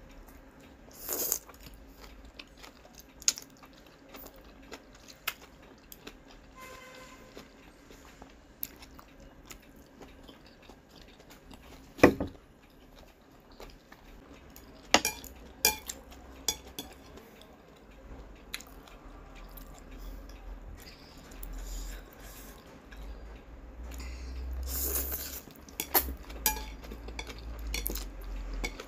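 Close-up eating sounds of spicy instant noodles: chewing, with scattered sharp clicks of plastic chopsticks against a ceramic plate, the loudest about twelve seconds in, and noodles being slurped near the end.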